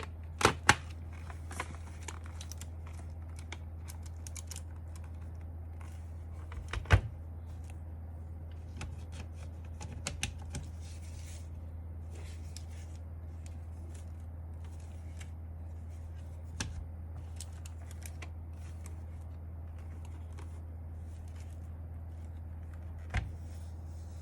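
Scattered sharp plastic clicks and knocks from a mechanical keyboard being handled and worked on, a few seconds apart, the loudest two about half a second in and another about seven seconds in, over a steady low hum.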